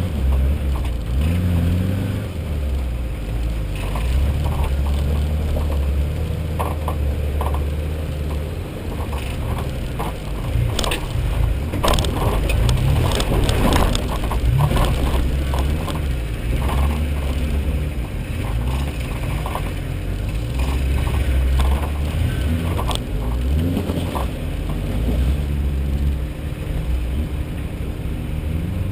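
Off-road 4WD engine running at low revs while crawling over a rocky track, its pitch rising and falling with the throttle. Knocks and rattles from the vehicle's body and gear as it lurches over rocks, thickest around the middle and again near the end.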